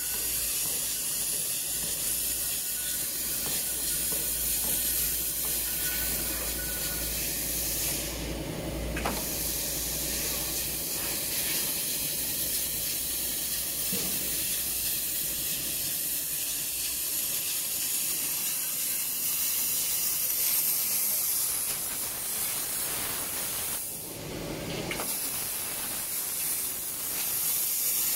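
CNC V-grooving machine planing grooves into sheet metal: a steady, hissing scrape from the carriage's row of cutting tools as it travels along the sheet. The sound changes briefly twice, about eight seconds in and again some sixteen seconds later.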